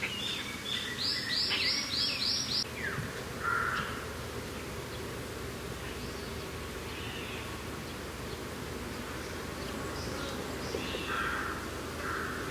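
Birds singing over a steady low rush of mountain wind: a quick run of about six repeated high notes in the first few seconds, then scattered fainter calls.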